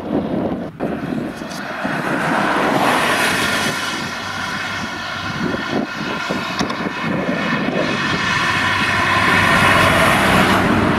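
Farm tractor's diesel engine running steadily as the tractor drives across the field, a droning note with a whine that swells as it comes closer. Wind buffets the microphone in the first couple of seconds.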